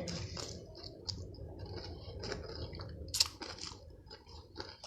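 A person chewing food close to the microphone: wet mouth clicks and crunches, with one louder crunch about three seconds in.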